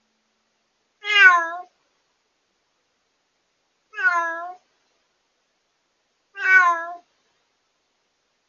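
A white cat meowing loudly three times, a couple of seconds apart, each call about half a second long and dropping in pitch at the end. This is the persistent crying of a newly rescued former stray settling into indoor life in its cage, picked up by a pet-watch camera's microphone, which distorts at this volume.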